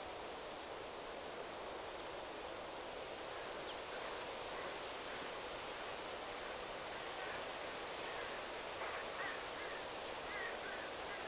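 Steady wind rustling through forest trees, with faint scattered bird chirps from about four seconds in that become more frequent near the end.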